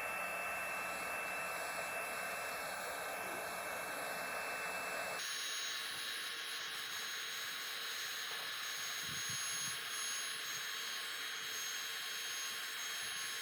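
DeWalt electric heat gun blowing steadily, its fan and hot-air rush with a thin steady whine, shrinking heat-shrink tubing over a soldered wire joint. Its sound shifts abruptly about five seconds in, then carries on steady.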